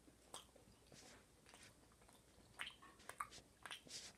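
A child chewing a mouthful of brownie with the mouth closed: faint, scattered wet smacks and clicks, coming more often in the second half.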